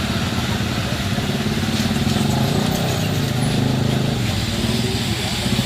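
Motor vehicle traffic, with engines running steadily and a low engine hum that shifts slightly in pitch over road noise.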